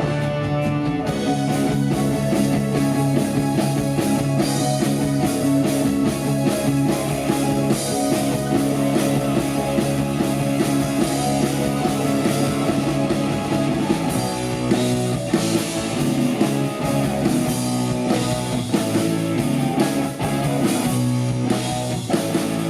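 Rock band playing an instrumental break live, with guitar over a steady drum kit beat.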